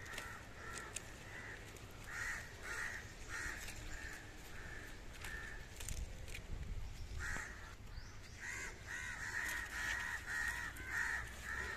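Birds calling in the background: a run of short repeated calls that grows busier in the second half, with faint rustling and snapping of Malabar spinach leaves being picked by hand.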